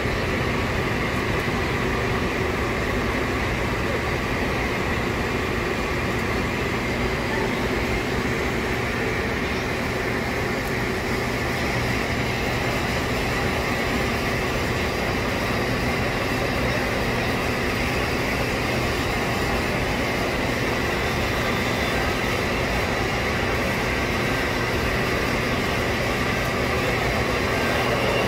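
Pole-mounted electric polisher running steadily, its buffing pad working over an airliner's fuselage skin: a constant machine drone with a steady whine.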